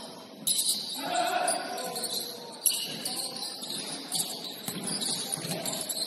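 Basketball game on a gym court: high-pitched shoe squeaks, a ball bouncing, with one sharp bang about two and a half seconds in, and players' voices.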